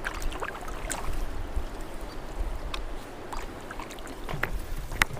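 Canoe on the water: paddle splashes and dripping water with scattered light knocks, over a low rumble.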